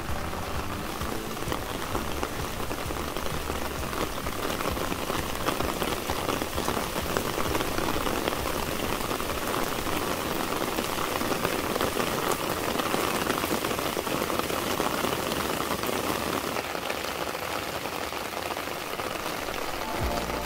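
Steady rain falling on garden plants and surfaces: a continuous hiss made of many fine drop impacts, at an even level throughout.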